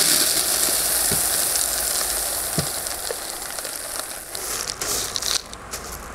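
Clay pebbles (expanded clay grow media) poured into a plastic grow tray: a continuous dense rattling patter, like heavy rain, that thins out after about four seconds into a few scattered rattles as the last pebbles fall and settle.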